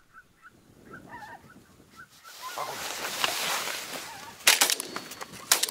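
Geese honking in a quick series of short calls. A rushing noise builds, then two loud shotgun shots about a second apart near the end.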